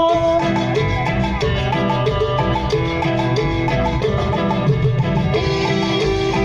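Instrumental Latin dance music of the sonidero style, with a steady percussive beat under held melodic notes.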